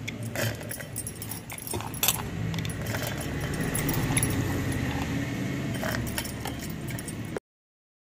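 Soaked toor dal being dropped and scraped by hand into a stainless-steel mixer-grinder jar: scattered light clinks and taps on the steel over a low steady hum. The sound cuts off abruptly near the end.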